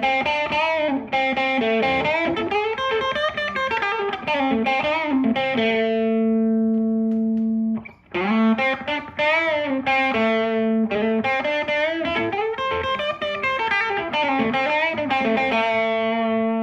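Fender Stratocaster electric guitar played through an amp: a single-note lead phrase with bent notes that ends on a long held note. It stops briefly about eight seconds in, then the same phrase is played again and ends on a held note.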